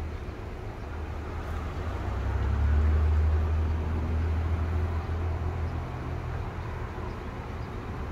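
Low rumble of a vehicle engine running, growing louder from about two seconds in, peaking around three seconds, then easing back to a steady drone.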